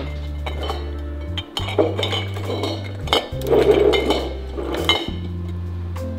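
Red plastic screw caps being twisted off and set down on clear jars, giving scattered clicks and clinks, busiest about two to five seconds in. A background music track with steady bass notes plays throughout.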